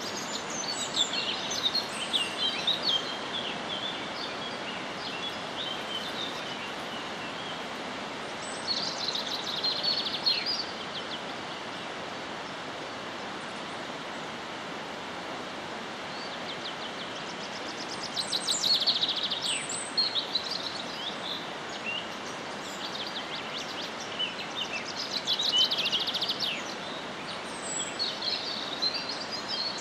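Songbirds chirping and trilling in several short bouts over a steady, even background hiss of outdoor noise, with a faint high steady tone underneath.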